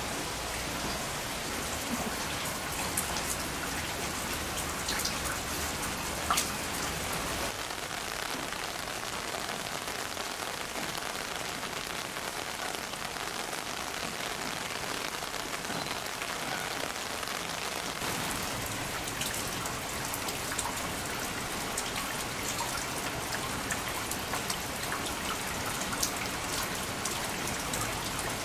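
Heavy typhoon rain falling steadily, with now and then a sharper tick of a drop striking close by.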